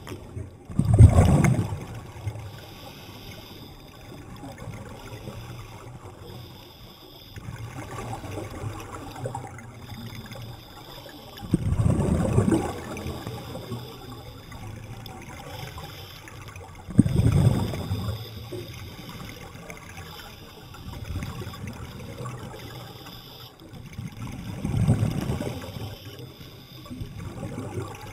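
Underwater recording of a scuba diver's exhaled bubbles gurgling up in a surge every four to five seconds, over a steady low water wash.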